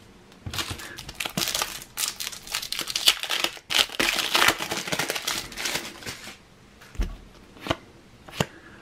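Foil trading-card booster pack being torn open, the wrapper crinkling and crackling for about five seconds, then a few sharp clicks as the cards are handled.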